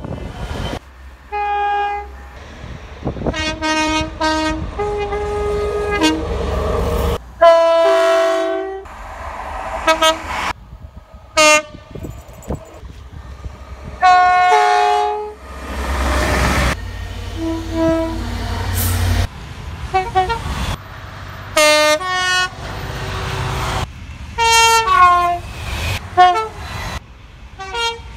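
British train horns sounding in many short clips, one after another: mostly two-tone blasts, a high note and a low note in turn, some short and some held for a second or more. A low rumble of the trains runs under several of them.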